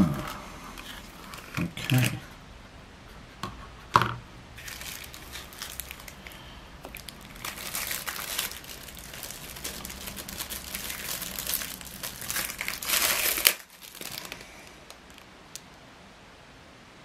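Clear plastic packaging crinkling and rustling as a small knife blade is unwrapped by hand, stopping abruptly about thirteen seconds in. A brief low hum comes about two seconds in.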